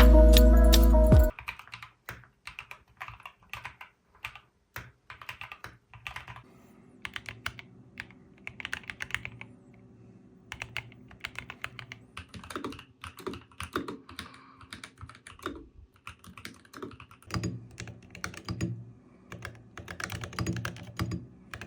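Typing on a mechanical keyboard fitted with ceramic keycaps: quick irregular keystrokes in bursts, louder in the second half. Music plays at the start and cuts off about a second in.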